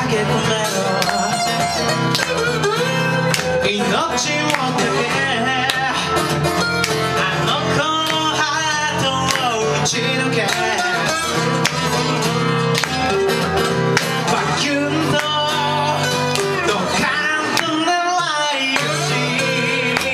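Two acoustic guitars playing together, one strummed, with a man singing over them in a live performance; the music runs steadily at full level.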